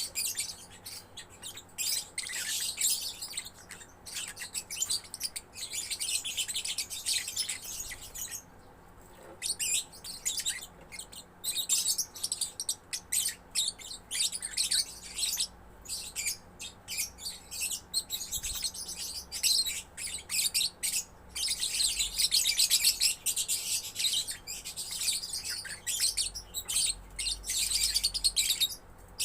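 Young lovebird chattering its rapid, high-pitched song in long runs broken by short pauses, loudest and longest near the end.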